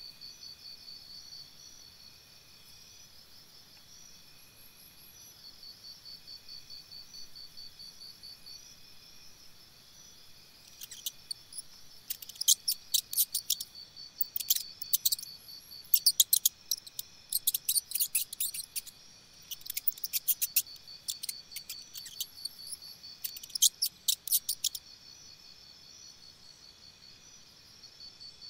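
Crickets trilling steadily in a pulsing high tone. From about ten seconds in, for roughly fourteen seconds, loud bursts of rapid, sharp high chirps come over the trill in quick series.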